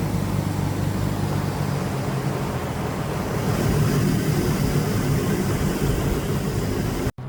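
The Lexus GS300's swapped-in non-VVTi 2JZ-GE inline-six engine running steadily, getting a little louder about halfway through. It cuts off abruptly at the very end.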